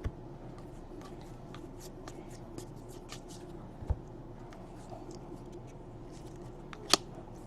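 Trading cards being handled and slid past one another by hand, giving soft scattered rustles and small clicks. There is a low thump about four seconds in and a sharper click near the end.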